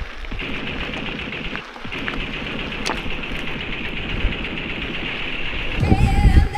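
Mountain bike riding over a rough trail: a continuous rattle and crunch from the tyres and bike, with a steady high buzz and scattered clicks. Near the end, music with singing comes in.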